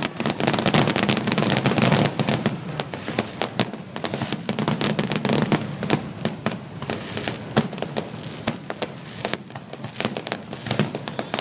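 Fireworks crackling and popping: a dense run of rapid sharp cracks for the first few seconds, thinning out to scattered single pops.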